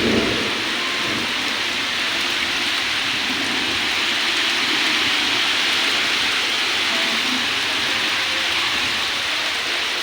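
Heavy monsoon rain pouring down steadily, with a brief low thump right at the start.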